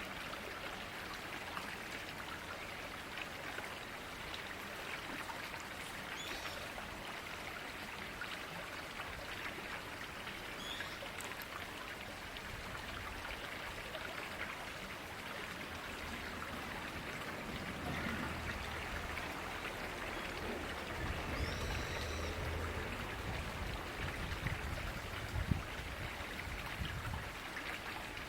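River water flowing steadily, with a few faint high chirps and a low rumble joining in past the middle.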